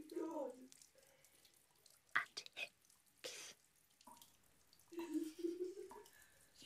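Water dripping from a brass bathroom tap into a ceramic basin: separate drips, each a short click or plink. A low voice sounds briefly at the start and again about five seconds in.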